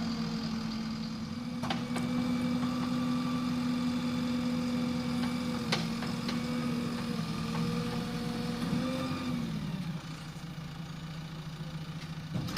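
A heavy diesel engine runs steadily, then throttles down about nine seconds in, its pitch falling. A couple of sharp metallic clicks or knocks come through over it.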